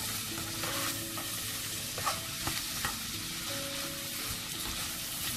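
Prawns, onions and spices sizzling in a non-stick frying pan on high heat while a spatula stirs and scrapes through them, with a few light clicks of the spatula against the pan. The hot pan is frying off the water the onions have released.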